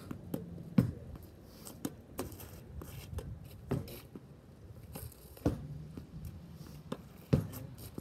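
A tennis ball being hit with a racket against a garage door and bouncing on an asphalt driveway. There is a sharp knock roughly every two seconds, with lighter taps in between.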